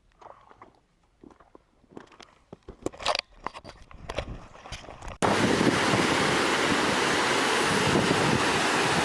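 Faint scattered knocks and rustles. About five seconds in, they cut off abruptly into a loud, steady rushing noise like wind or surf on outdoor footage.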